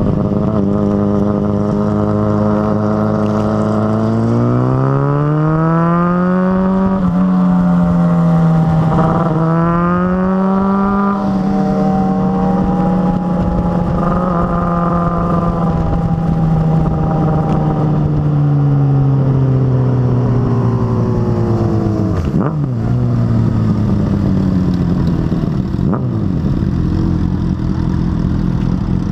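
Motorcycle engine under way, its pitch rising as it speeds up over the first several seconds, holding steady, then falling gradually as it slows in the later part. Other motorcycle engines rise and fall alongside it.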